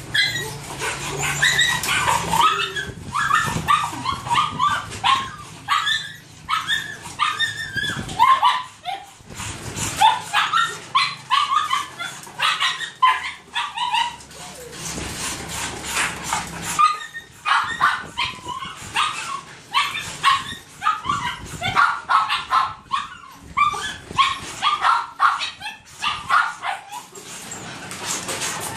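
Caged dogs yipping, whining and barking at feeding time while bowls of food are brought to them. The short, high-pitched calls come several a second, with a few brief breaks.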